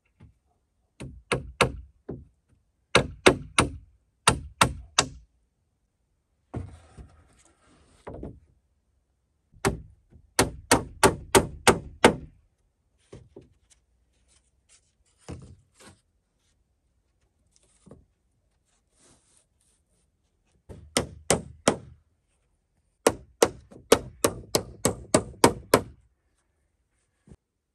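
Hammer driving nails into rough-sawn wooden planks on a log frame, in quick runs of about three strikes a second with short pauses between. A brief scraping sound comes about seven seconds in.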